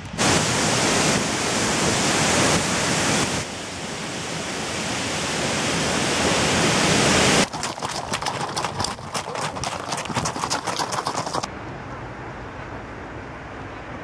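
Loud, steady roar of a tall waterfall's falling water. About seven seconds in it cuts to the rushing of a fast white-water river, with wind buffeting the microphone, and this settles to a quieter steady rush for the last few seconds.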